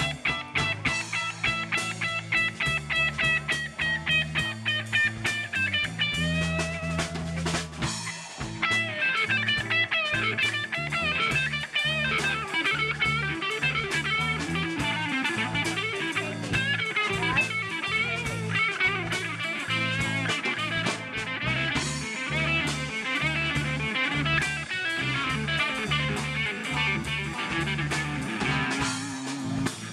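Live blues band: an electric guitar plays lead lines with bent notes over a drum kit, a second guitar and a low bass line.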